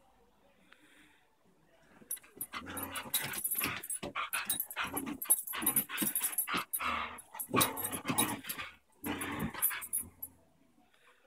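Beagles growling while tugging on a rope toy, a rough, continuous run of play-growls that starts about two seconds in and dies away near the end.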